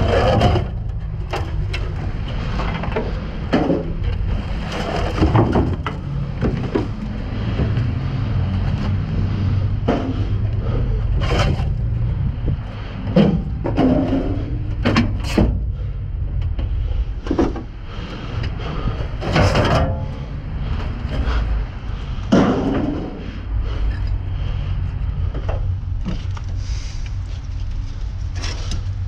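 Scrap metal being pulled and shifted around in a dumpster: scattered knocks, clanks and scrapes at irregular times over a steady low rumble.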